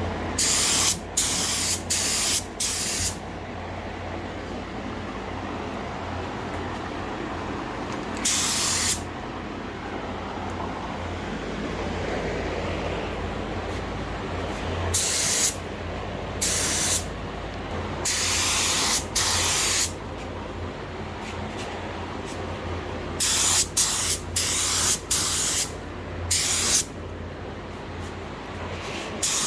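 Air spray gun spraying primer in short trigger pulls: about fifteen separate hisses, each a fraction of a second to about a second long, in clusters, over a steady low hum.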